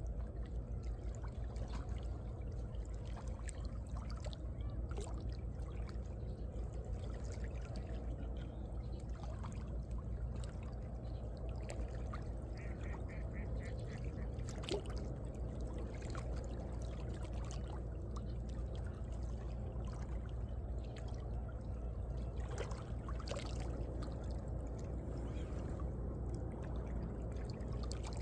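Small sea waves lapping and sloshing in the gaps between shoreline rocks: a steady wash with a low rumble and many small trickles and splashes. A brief rapid high-pitched chatter comes about halfway through.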